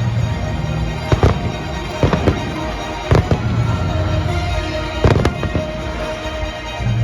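Fireworks bursting: a run of sharp bangs and crackles, the loudest about a second, three seconds and five seconds in, with music playing underneath.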